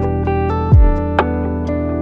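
Background music: a plucked guitar-like melody over held notes, with a deep falling kick drum, light ticking hi-hat and a snare hit.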